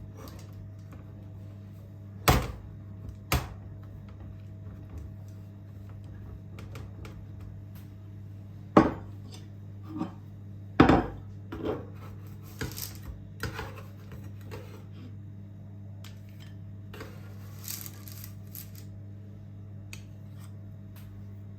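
Dishes and utensils being handled: scattered clinks and knocks, the sharpest about two, three, nine and eleven seconds in, over a steady low hum.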